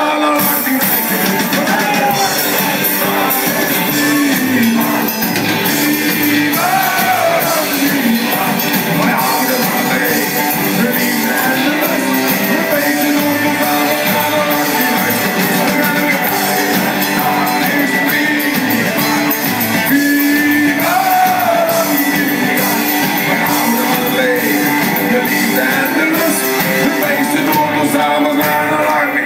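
Live band playing upbeat carnival party music with electric guitar and a lead singer, loud and steady, in a large hall.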